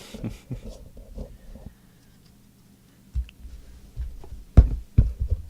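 Trading cards and packs being handled on a table: a few soft thumps and knocks, the loudest two near the end about half a second apart.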